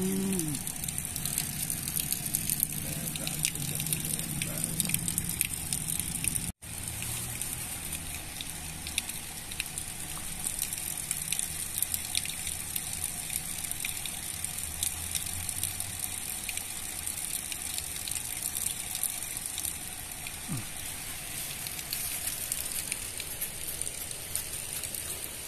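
Steady rushing of water from a dam spillway, an even hiss echoing off concrete walls, broken by a brief dropout about six seconds in.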